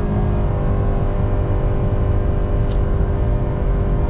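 Nissan car's engine at full throttle during a hard acceleration run, heard from inside the cabin: a steady drone that holds nearly one pitch over a low road rumble.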